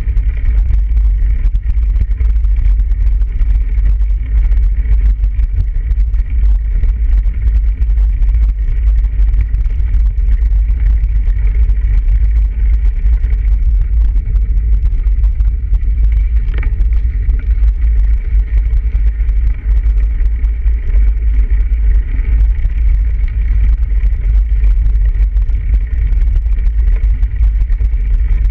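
Bicycle rolling along a snow-covered path, heard through a handlebar-mounted camera: a loud, steady low rumble of wind and ride vibration, with a faint steady high hum over it. A single short click comes about halfway through.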